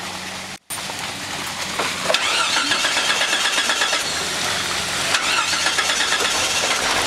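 Jeep Wrangler JK Unlimited's engine running and revving as the Jeep crawls over rocks and mud, louder from about two seconds in.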